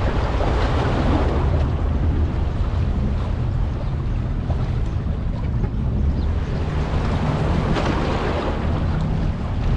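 Ship and sea ambience: a steady low engine rumble under wind and water noise, which swells about a second in and again near the end.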